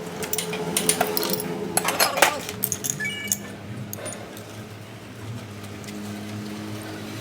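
Small metal parts clinking and tapping together, with a brief metallic ring about three seconds in, over a steady low hum that grows stronger near the end.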